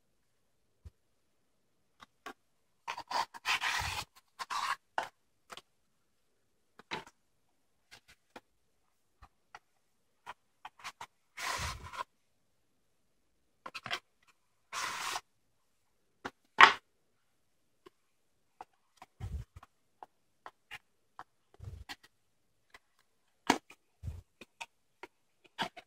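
Cardboard boxes and plastic packaging handled by hand: scattered rustles and scrapes with quiet gaps between them, a sharp click a little past the middle as the loudest sound, and a few soft thumps of boxes set down on a table.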